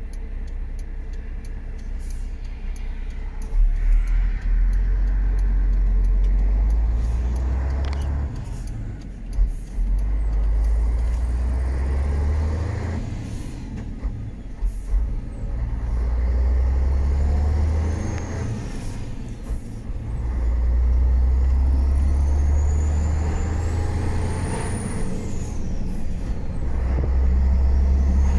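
MAN F90 26.422 truck's straight-six turbo diesel pulling away and working up through the gears: the engine note climbs steadily in each gear, then drops at each of about four gear changes. A high turbo whistle rises and falls as the engine builds speed.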